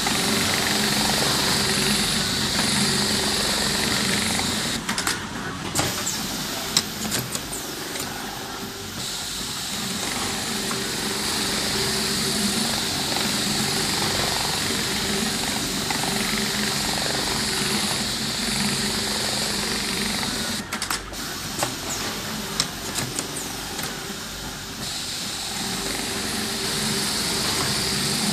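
Automatic cap visor sewing machines running steadily with a hum and a high hiss. Twice, about sixteen seconds apart, the running drops back for a few seconds amid sharp clicks, then picks up again, in a repeating work cycle.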